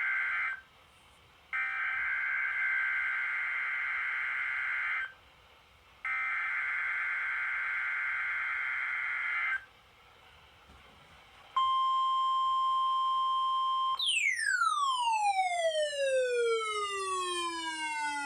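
NOAA Weather Radio Required Weekly Test: the end of one SAME header data burst, then two more digital data bursts of about three and a half seconds each, with about a second of faint hiss between them. About two seconds later a steady single-pitch tone sounds for about two seconds. It is followed by long falling siren-like sweeps, each lasting several seconds.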